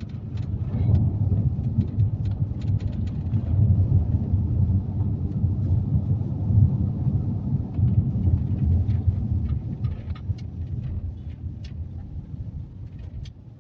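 Low rumbling noise that swells and eases unevenly, with scattered faint clicks, fading somewhat near the end.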